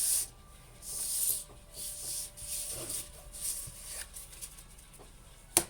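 Tarot cards being handled and shuffled: a series of soft brushing swishes, then one sharp click near the end.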